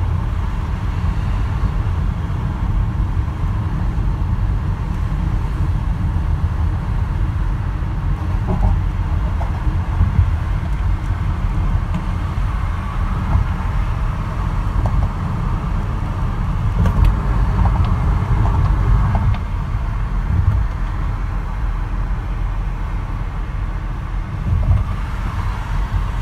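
Steady low rumble of a car's tyres and engine while driving at road speed, heard from inside the cabin.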